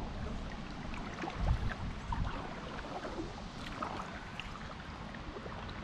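Water dripping and lapping around a kayak as it is paddled, with small splashes and clicks and a steady low rumble of wind on the microphone. There is a louder low thump about a second and a half in.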